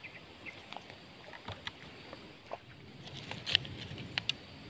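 Steady high-pitched chirring of insects, with scattered faint clicks and rustles of handling.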